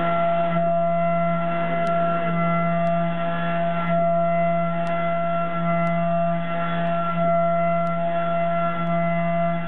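CNC milling machine's end mill cutting a block of 16MnCr5 case-hardening steel with an iMachining toolpath, giving a steady pitched whine with several overtones.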